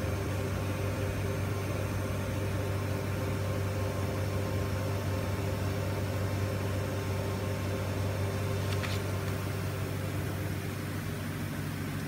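Steady low hum with a few faint steady tones above it from the powered-up Chevalier QP2033-L CNC vertical machining center, with a faint tick about nine seconds in.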